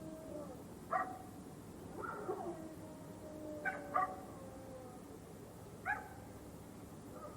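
Dogs in a fight: about four short, sharp barks, with long whines between them that slide down in pitch.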